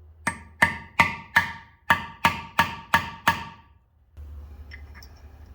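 Hammer blows on a steel screw extractor set in a broken bellhousing bolt in a small-block Chevy 350 block, tapping it to seat it and shock the bolt loose. There are nine sharp, ringing strikes at about three a second, with a short pause after the fourth.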